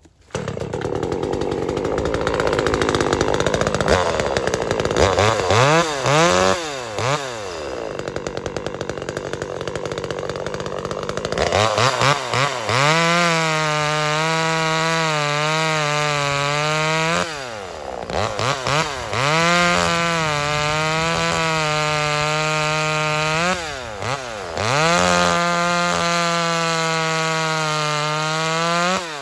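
Stock 25 cc two-stroke top-handle chainsaw, a Chinese clone of the Zenoah 2500, starts up and is blipped up and down, then held at full throttle cutting pine. The engine drops back briefly twice between cuts.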